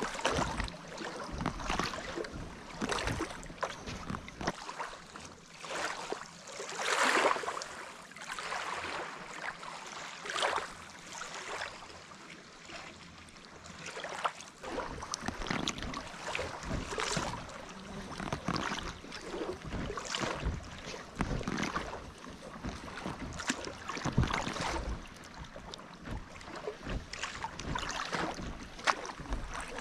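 Double-bladed paddle strokes splashing in lake water beside an inflatable packraft, one irregular splash after another about a second apart.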